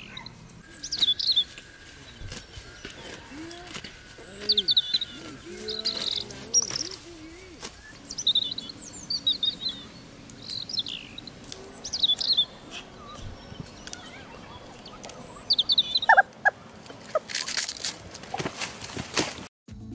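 Forest birds chirping repeatedly in short high calls. A lower, repeated curving call sounds between about three and seven seconds in. Brief rustling comes near the end.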